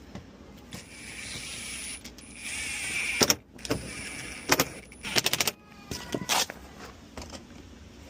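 Handling noise: a rushing hiss for about two seconds, then scattered knocks and clicks, with a quick run of about five clicks a little past the middle.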